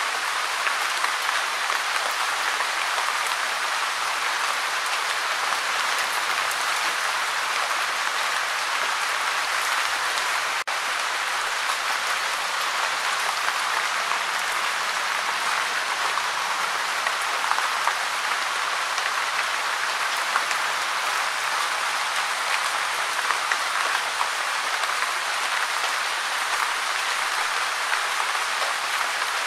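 Steady gentle rain falling, a dense even patter, with a split-second dropout about ten seconds in.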